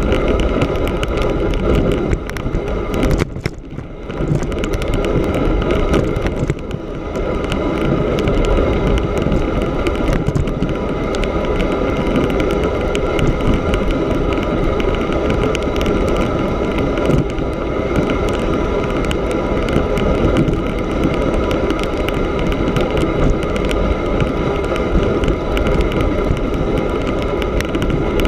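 Steady rushing noise of a fat-tyre bicycle riding across snow on lake ice: wind on the microphone mixed with the wide knobby tyres rolling over the snow, easing briefly about three and a half seconds in.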